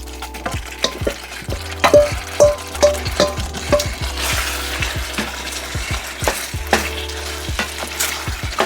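Spoon stirring and knocking against a pan as sliced potatoes are mixed into a thick simmering cream sauce with beef, the sauce sizzling. About two seconds in comes a quick run of ringing metal taps, and the sizzle grows louder about four seconds in.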